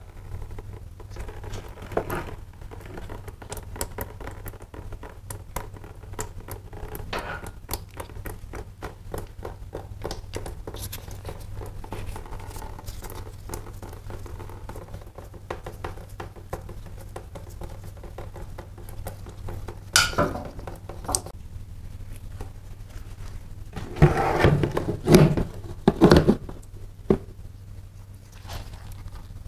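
Small clicks, taps and rustles from gloved hands working on a motorcycle's coolant hose and hose clip, over a steady low hum. Louder clunks and rattles come about two-thirds of the way through and again in a cluster near the end.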